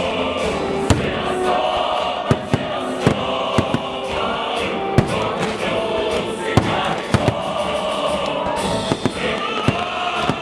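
Fireworks going off in irregular sharp bangs, about one or two a second, over music with choir singing.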